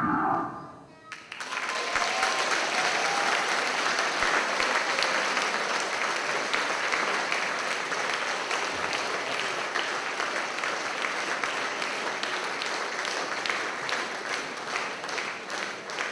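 Audience applauding, starting about a second in just after the music ends, holding steady, then thinning into scattered separate claps near the end.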